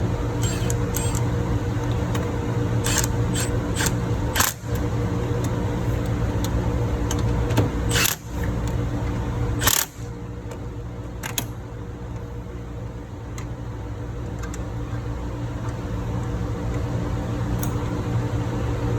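Steady drone of ship engine-room machinery with a constant hum, and a handful of sharp metallic clicks in the first half. Just before the middle it drops a little in level, then slowly builds back up.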